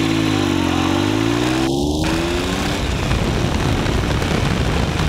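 Triumph Tiger 1050's three-cylinder engine running while riding, its pitch dipping and climbing again in the first couple of seconds, then drowned out by wind rush on the microphone.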